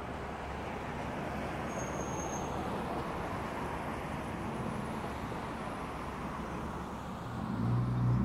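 Steady city road traffic noise from cars and trucks. Near the end a nearby vehicle grows louder with a low hum as it passes close, and about two seconds in there is a brief faint high-pitched squeak.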